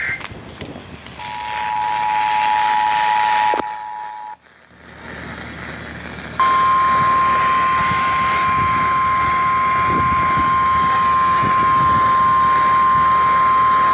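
Emergency alert tones over a weather radio broadcast: a two-tone EAS attention signal sounds for about two seconds and is cut off, followed by a few seconds of hiss. About halfway through, the single steady NOAA Weather Radio warning alarm tone starts and holds, signalling that a warning message is about to be read.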